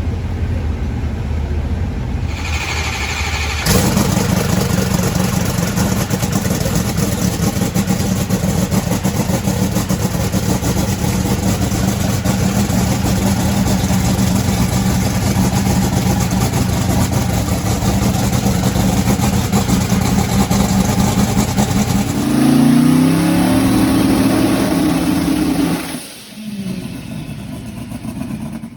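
Freshly rebuilt 5,000-plus-horsepower Hemi drag racing engine being started: a brief cranking whir, then it fires about four seconds in and runs loud and steady. Near the end it revs up in rising pitch, then drops off sharply as it is shut down. This is its first run after a rod and piston change.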